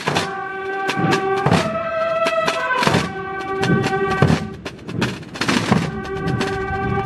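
Semana Santa procession band of drums and bugles playing a march: held bugle notes that change every second or so over repeated drum strokes.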